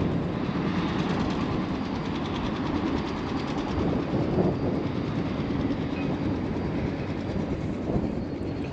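Steady wind rushing and buffeting on the microphone, a low, unbroken rumble with no pauses.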